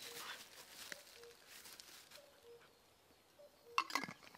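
Forest ambience: a distant bird repeating a low two-note call, the second note lower, about once every second or so, over faint rustling. A few louder crunches or knocks near the end.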